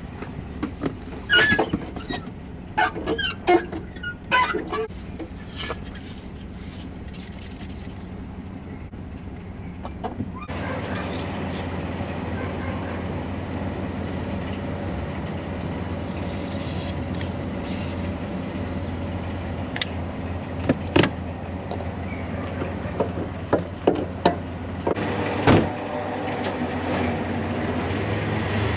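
Clicks and knocks of someone moving about in a pickup cab, then from about ten seconds in the Dodge Dakota pickup's engine running steadily as a low hum, with a few more knocks later on.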